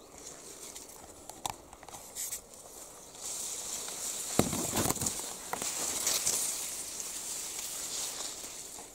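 Tall reed stems rustling and brushing as someone pushes through them on foot, with footsteps. A few scattered clicks at first, then louder continuous rustling and crackling from about three seconds in.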